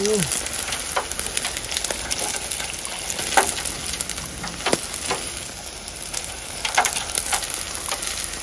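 Hot cooking oil poured over the skin of a pork hock (crispy pata), sizzling steadily with scattered sharp pops and crackles as the skin blisters and puffs up.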